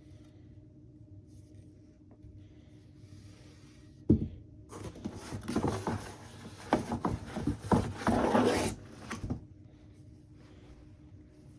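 Unboxing packaging being handled: a sharp knock about four seconds in, then about four seconds of rustling and crinkling.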